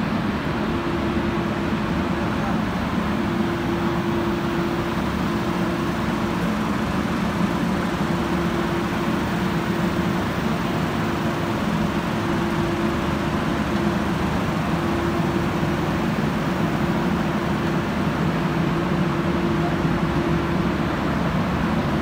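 Steady drone of a running rubber insulation pipe extrusion and vulcanization line: motors and fans running, with a steady hum that swells and fades slightly.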